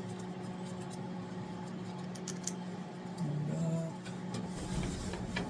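A few light clicks and clinks of small metal parts being handled, over a steady low electrical hum, with a brief murmur of voice a little past the middle.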